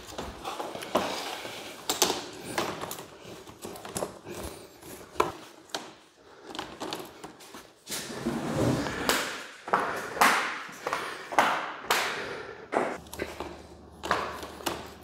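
Hard plastic Swisstrax interlocking garage floor tiles being laid down and snapped together: irregular sharp clacks and snaps, about one or two a second.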